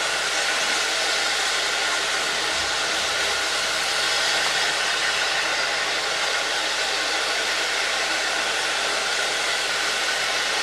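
Steam locomotive blowing off steam: a steady, even hiss.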